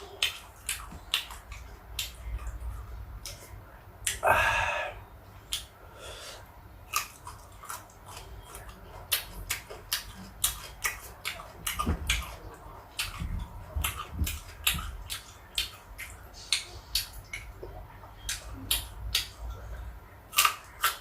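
Close-up chewing of crisp sour fruit: many irregular sharp crunches and mouth clicks, with a brief louder breathy burst about four seconds in.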